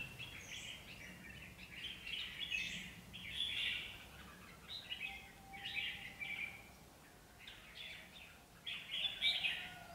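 Red-whiskered bulbuls singing short, chirpy phrases again and again, with a brief lull about seven seconds in: caged decoy birds calling to lure in a wild bulbul.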